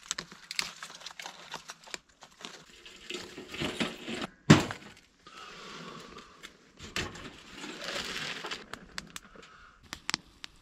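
Crinkling and rustling of camping gear being handled, with scattered sharp clicks and one loud knock about four and a half seconds in.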